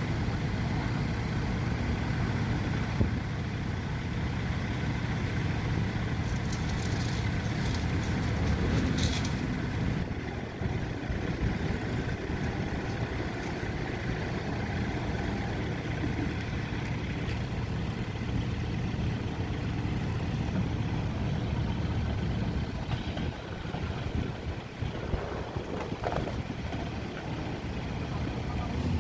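Heavy diesel engine of construction machinery running steadily, with a short high-pitched click about nine seconds in.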